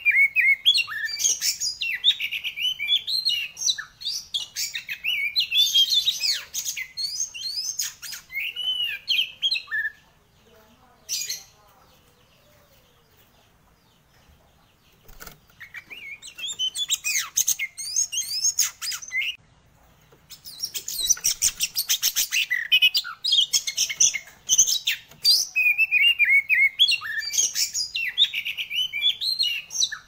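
Oriental magpie-robin (kacer) singing loudly in full song: rapid, varied whistles and chattering phrases, with a pause of several seconds about ten seconds in and a brief break around twenty seconds.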